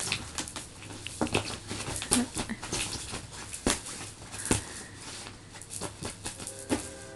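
Two cats playing: a run of irregular taps, scratches and scuffles.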